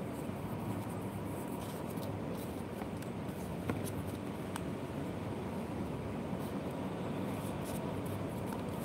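Pen writing on paper and sheets of paper being handled, faint against a steady background hum, with a couple of light ticks around the middle.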